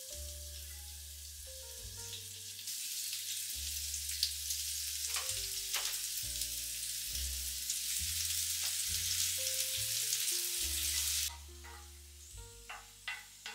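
Sliced onions and tomatoes sizzling in hot olive oil in an enamelled grill pan, the sizzle swelling about two and a half seconds in and dropping off sharply near the end. A few sharp clicks follow as a wooden spatula stirs the vegetables in the pan, over soft background music.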